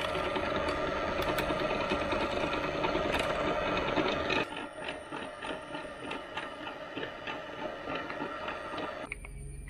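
Drill press running, its bit boring a hole through a clamped two-piece wooden block, with a steady motor hum. About four and a half seconds in the sound drops quieter and goes on with a regular ticking.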